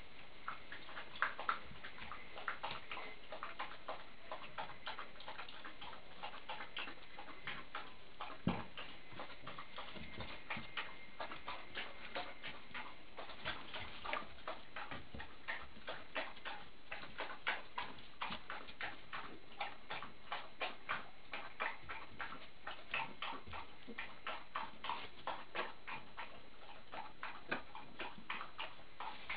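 Light, sharp clicks or taps in an irregular run, about two a second, over a low steady hiss. A faint thin high tone can be heard in the first few seconds.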